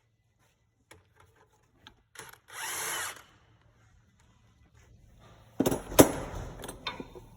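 Handheld power tool of the drill kind running in a short burst about two and a half seconds in, then again with sharp knocks about six seconds in, the loudest sound.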